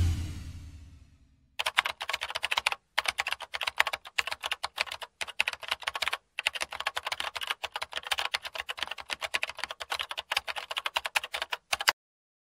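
Rapid computer-keyboard typing: dense clicking from about a second and a half in, with two brief pauses, stopping abruptly near the end.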